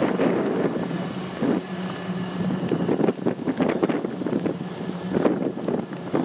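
Blizzard wind buffeting the microphone, an uneven rough rush that swells and drops in gusts, over a steady low hum.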